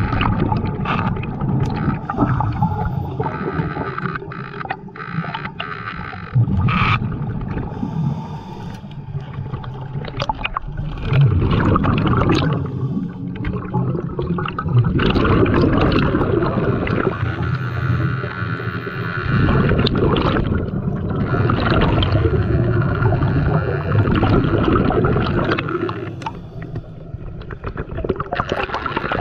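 Muffled underwater noise picked up through a camera's waterproof housing: water rushing past, with many knocks and scrapes from handling the speargun and the stringer of fish, over a faint steady hum.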